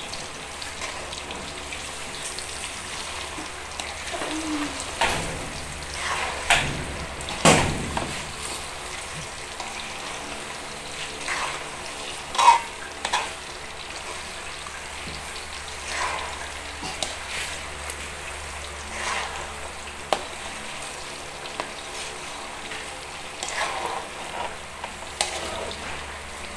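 Bananas deep-frying in hot oil with brown sugar in a metal wok: a steady sizzle while the sugar caramelizes into a latik coating. A metal spatula scrapes and knocks against the pan in short strokes now and then as the bananas are stirred and turned.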